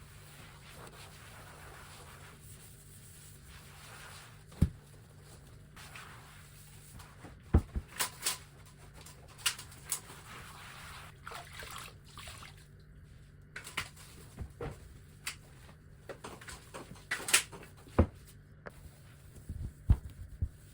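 Household handling noises: scattered sharp knocks and clicks of objects being set down or moved, with stretches of soft rubbing or hissing between them.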